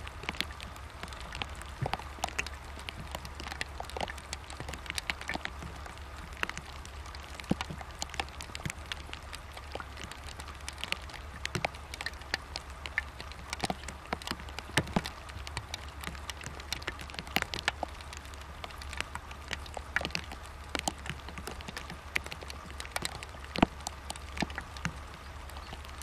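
Irregular light clicks and taps, several a second, over a steady low hum and a faint steady high tone.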